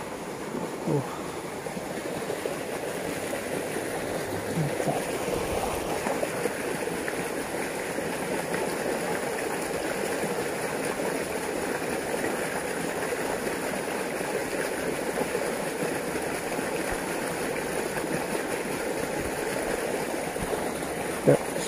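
Shallow water rushing fast through a narrow concrete irrigation channel: a steady, even rush of flowing water.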